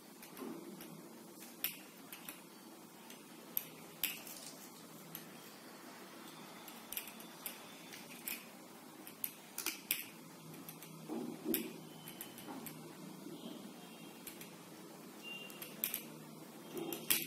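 Faint, irregular clicks and light taps from hands fitting wires to a small plastic toy fan on its DC motor.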